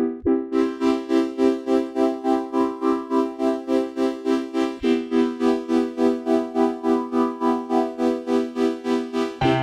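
Background music: an electronic keyboard or organ playing held chords that pulse about three times a second. The chord changes near the start and again about halfway through.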